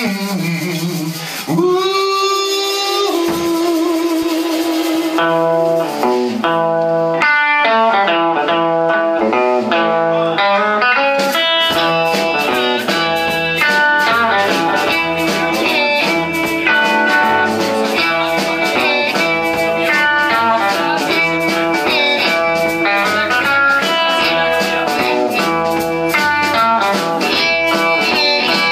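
Live electric blues band: a long wavering held note opens, then an electric guitar riff comes in about five seconds in, drums join soon after, and the bass enters about twelve seconds in, with harmonica over the groove.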